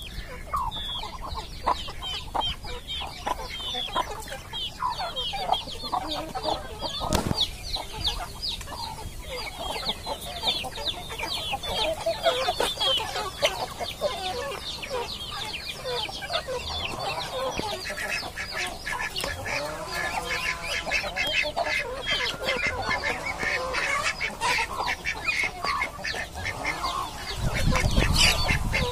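Village chickens clucking as they peck feed from a plastic tray, with quick pecking taps throughout. A louder low bump comes near the end.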